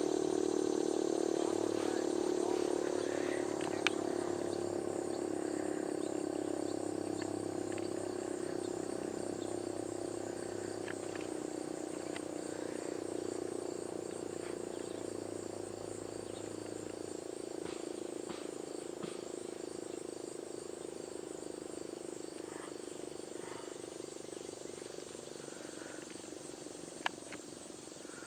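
Sentry 7V8 outdoor warning siren holding one steady tone that slowly fades and drops slightly in pitch as it winds down at the end of its test. Crickets chirp faintly underneath.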